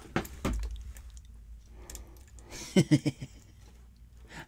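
Lock pick working the pins of a pin-tumbler lock cylinder, with a few sharp clicks near the start as the pins are set. A brief wordless vocal sound about three seconds in.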